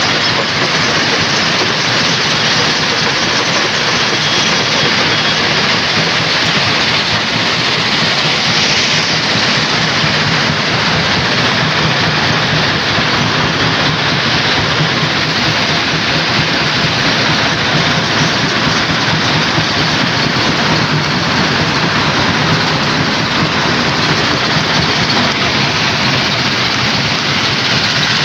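Rock crusher running, a loud, steady mechanical noise with no breaks.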